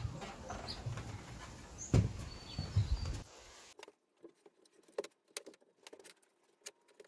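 A wooden shed door being opened and a large wooden board being handled, over a low background rumble, with two loud knocks about two and three seconds in. From about four seconds in there are scattered light knocks and clicks as the board is set down and shifted on a CNC machine's bed.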